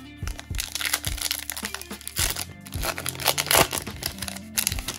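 Shiny foil wrapper of a 2020 Panini Prizm Draft Picks basketball card pack crinkling loudly as it is torn open. Background music with a steady beat plays underneath.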